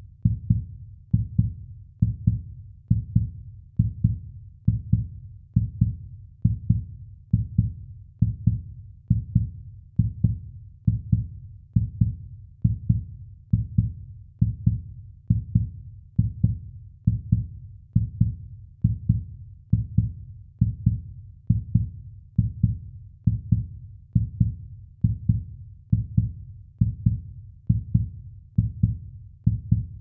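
Heartbeat sound effect for horror: deep, low thumps repeating evenly at about one beat a second, each beat a close double thump.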